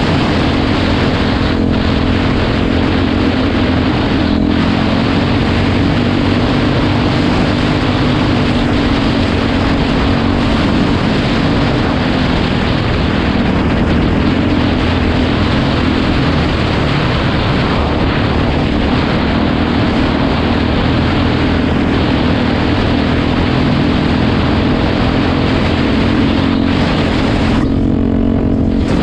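Single-cylinder dirt bike engine running at a steady pull under a rider, mixed with heavy wind rush over the camera microphone. The wind rush eases briefly near the end.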